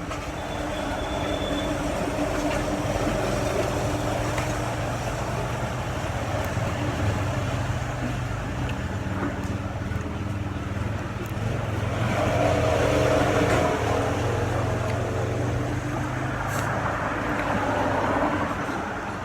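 Steady low hum of a running vehicle engine amid traffic noise, growing louder about twelve seconds in and again near the end.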